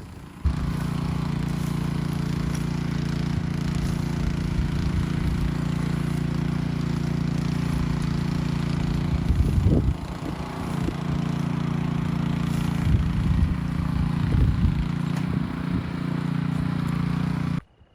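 Gasoline rototiller engine running steadily while tilling, with brief louder surges a few times in the second half; it starts and cuts off abruptly.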